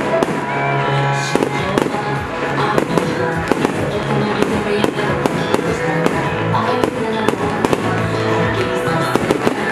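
Aerial firework shells bursting and crackling in rapid succession, many sharp bangs and pops, over music with held notes.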